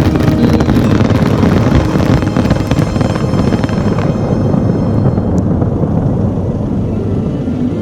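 Fireworks display: a dense stream of shell bursts and crackling. After about four seconds the sharp crackle thins out and a low, steady noise carries on.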